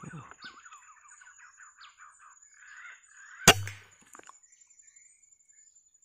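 Small birds twittering in a quick series, then about three and a half seconds in a single sharp rifle shot with a short low thump.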